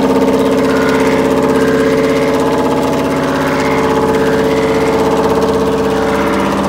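Cylinder-head resurfacing machine running with a steady hum as its wheel cuts across the face of a four-cylinder diesel cylinder head under a coolant spray.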